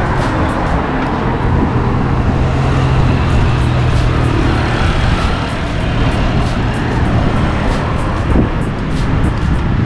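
City road traffic: a steady wash of road noise, with a motor vehicle's engine humming close by through roughly the first half.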